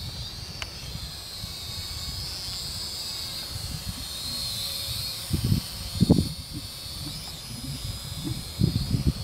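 Small quadcopter drone's motors and propellers whining high, the pitch wavering up and down as it flies. Gusts of wind buffet the microphone, strongest a little after the middle and near the end.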